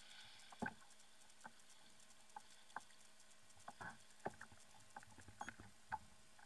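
Faint, irregular light knocks and small water splashes at the side of a plastic fishing kayak while a large corvina is handled at the surface, about a dozen in all, the sharpest just under a second in and near the end.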